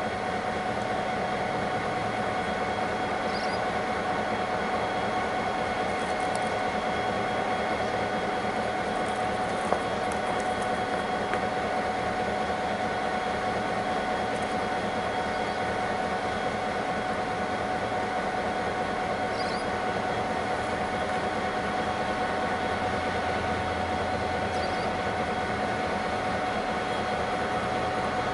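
Stationary V/Line G class and streamlined S class diesel-electric locomotives idling: a steady hum with a constant high whine that does not change in pitch. Faint bird chirps come now and then.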